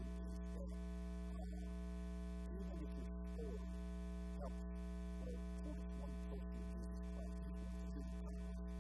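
Steady electrical mains hum: a constant low buzz with a stack of overtones, unchanging throughout. Faint wavering pitched sounds lie beneath it.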